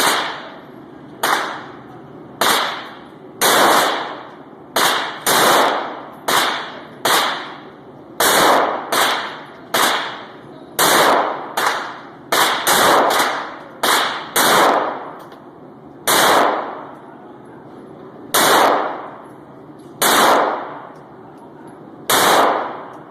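A 9mm Glock 19 pistol being fired about twenty times, sometimes single shots a second or two apart and sometimes quick strings of three or four, each shot trailing off in an echo.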